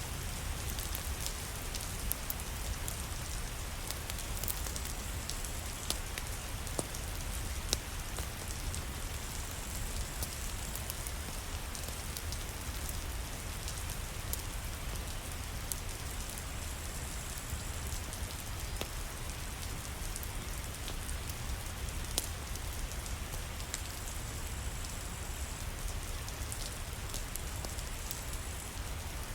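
Steady rain, an even hiss with scattered sharp ticks of drops and a low rumble underneath.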